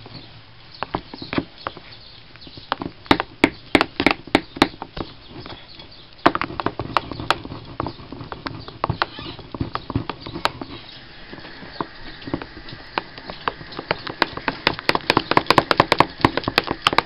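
A utensil stirring banana pancake batter in a measuring cup, clicking and knocking irregularly against the cup's sides. The clicks come in clusters and are densest near the end.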